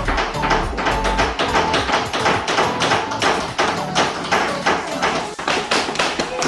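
Several hammers striking wood at once, a dense, irregular clatter of taps.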